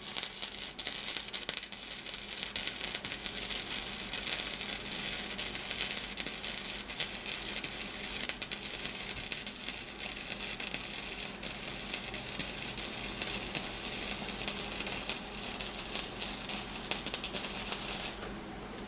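A Hobart 190 wire-feed welder running flux-core wire: the arc crackles and sizzles steadily through one long bead. It stops suddenly about a second before the end.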